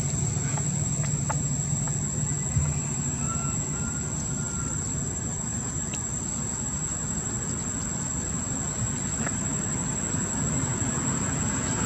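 Steady low rumble of outdoor background noise under a faint, high, steady whine, with a few faint clicks.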